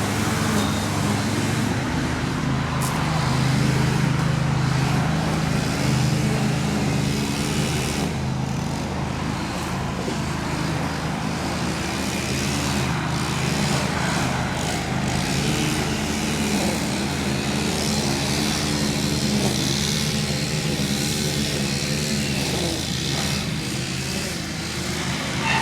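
A large excavator's diesel engine running steadily, its pitch wavering up and down as it works.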